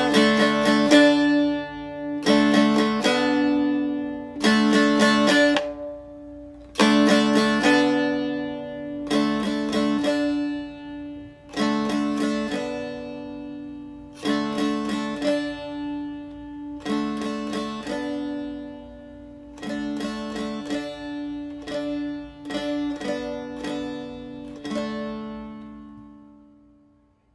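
Seagull Merlin, a small fretted dulcimer, strummed in slow phrases of chords over steadily ringing drone strings; the tune dies away near the end.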